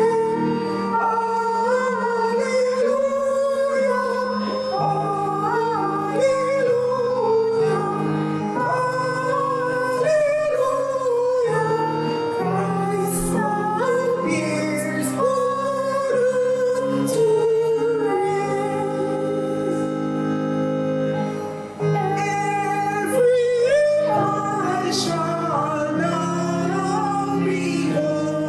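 A woman singing a slow song with instrumental accompaniment, with a brief drop in level about three quarters of the way through.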